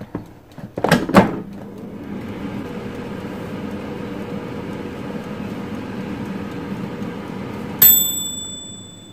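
Air fryer basket slid shut with a couple of clunks about a second in, then the air fryer's fan running with a steady hum. Near the end its timer bell dings once, ringing away over about a second, and the fan winds down as the cooking cycle ends.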